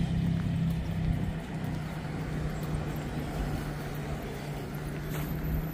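Steady low engine hum that holds evenly throughout, over a light noisy background.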